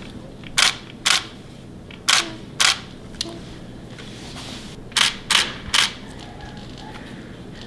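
Camera shutter firing seven times as the newborn is photographed: two clicks, then two more, then a quick run of three, each a short sharp click.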